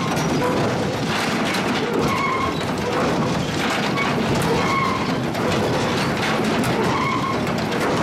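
Sawmill log step feeder running: a steady clatter of pine logs rolling and knocking against the steel steps and spiked rollers, with short high squeals now and then.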